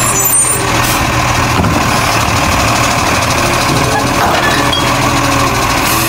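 Garbage truck engine idling steadily.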